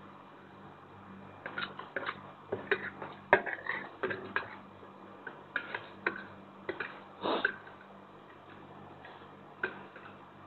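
Metal spoon and fork clicking and scraping on a plate while gathering up instant noodles: quick, irregular taps starting about a second and a half in and running for several seconds, then a single click near the end.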